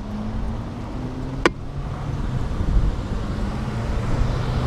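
Wind buffeting the microphone over road traffic noise, with a low steady hum of a passing vehicle early on. A single sharp click about a second and a half in.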